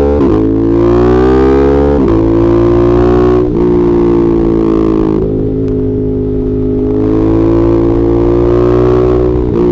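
Ducati Monster 1200S's L-twin engine pulling hard through the gears, its pitch climbing and then dropping at each upshift, about five shifts in all.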